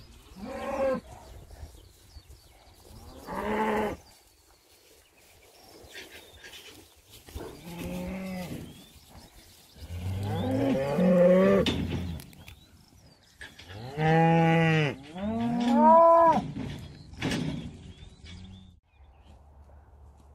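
Cattle mooing over and over: about seven separate moos, each up to two seconds long, the longest and deepest about halfway through.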